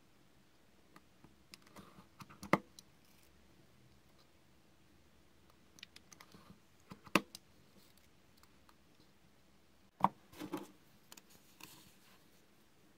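Craft knife cutting thin 1 mm square hinoki sticks on a cutting mat: a few light ticks as the blade is set, then a sharp click as it presses through the wood, three times.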